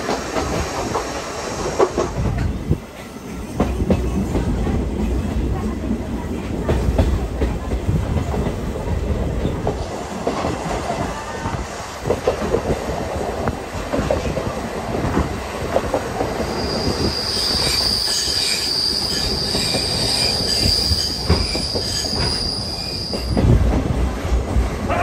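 Passenger coach of a steam-hauled train running along the track: a steady rumble and clatter of the wheels on the rails. From about two-thirds of the way in, a high steady wheel squeal runs for several seconds, then stops.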